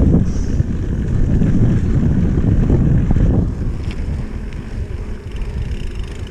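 Wind buffeting the microphone of a handlebar-mounted camera, with the rumble and rattle of a bike rolling over bumpy grass. About three and a half seconds in, the rumble drops to a quieter, smoother rolling hiss as the bike moves onto pavement.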